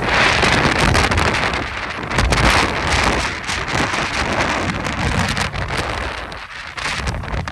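Strong Santa Ana wind gusting and buffeting the microphone with a loud rushing hiss and crackle. The gusts are strongest at the start and again about two and a half seconds in, and ease briefly about a second before the end.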